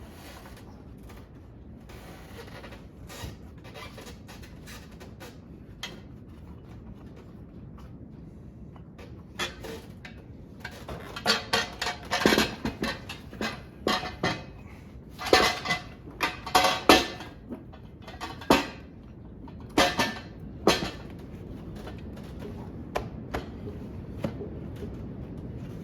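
Metal tools and engine parts clinking and clattering as they are handled during engine work. A few faint ticks come first, then a busy run of sharp clanks in the middle, which then dies down.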